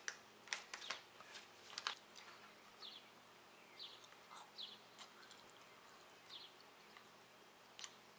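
Near-silent room with a few soft clicks and crinkles of a candy-bar wrapper being handled and the bar chewed in the first two seconds, and faint short high bird chirps scattered throughout.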